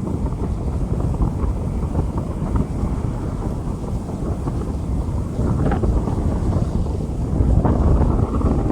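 Rain falling on a street with wind buffeting the microphone: a steady, low, rushing noise.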